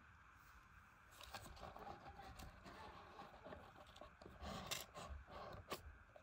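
Quiet handling noise as a watch is pulled out of the cushion of its presentation box: soft rustling and scraping starting about a second in, with a few sharp clicks near the end.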